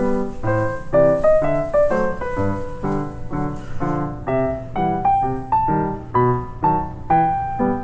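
Background piano music, with notes and chords struck in an even rhythm of about two a second.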